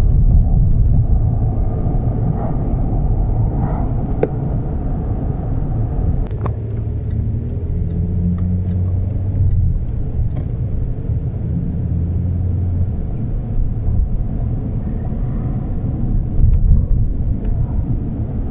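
Vehicle engine and road noise heard from inside the cabin while driving: a steady low rumble, with the engine's drone holding one pitch for several seconds in the middle.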